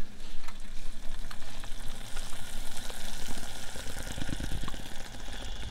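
Curry sauce of onions, curry paste and reduced white wine sizzling in a stainless steel saucepan, with cream being poured in from a carton partway through.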